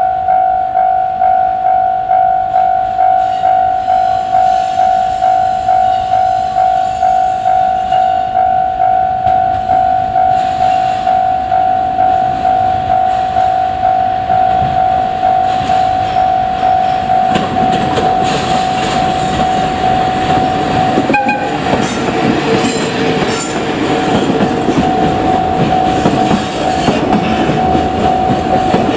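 Level-crossing warning bell dinging in a fast, even repeating beat. From a little over halfway in, the rumble and clickety-clack of a freight train passing over the crossing rises underneath: the ED76 electric locomotive and its container wagons.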